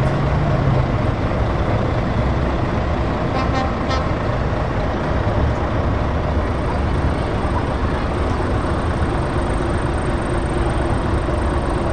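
Heavy truck diesel engines running at low revs as a Scania tractor unit pulls slowly away, with the next truck in the queue running close behind. A short double horn toot comes about three and a half seconds in.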